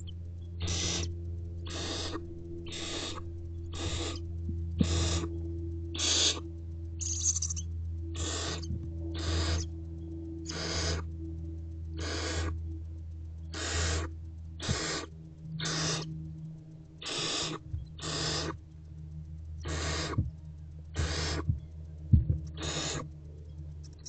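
Barn owlets giving a long series of rasping hiss calls, the owlets' 'snoring', about one a second, over a steady low electrical hum.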